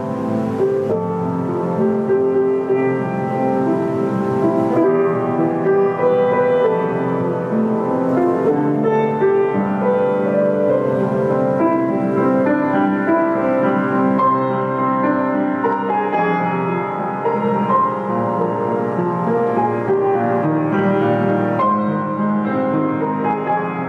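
Kawai GM-2 baby grand piano played without a break: a melody over held chords, notes ringing into one another.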